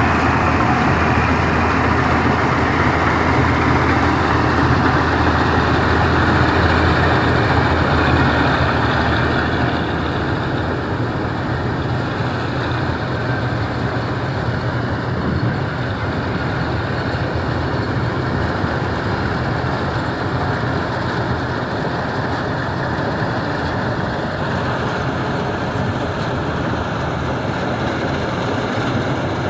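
Combine harvester running steadily, its engine and machinery a continuous loud drone that drops a little in level about a third of the way through.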